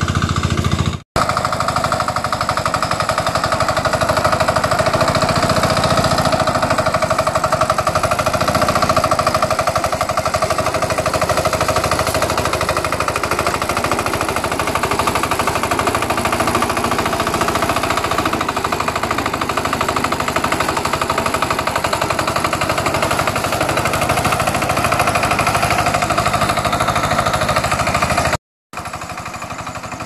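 Kuliglig hand tractor's single-cylinder diesel engine chugging steadily with a rapid, even beat as it pulls through wet paddy mud. The sound cuts out briefly about a second in and again near the end.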